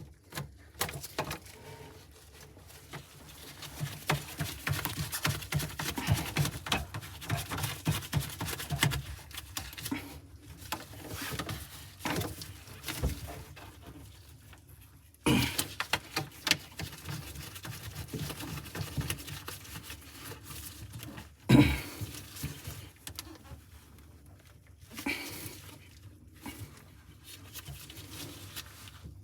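Irregular clicks and knocks of hands working a sink's P-trap drain fittings, with one sharp, loud knock about three-quarters of the way through.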